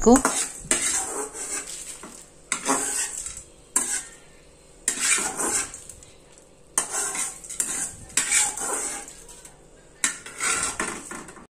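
A metal spoon scraping and scooping dry-roasted spices (coriander seeds, cumin, garlic, curry leaves) across an aluminium kadai in repeated strokes about every second or two, as the spices are moved out of the pan.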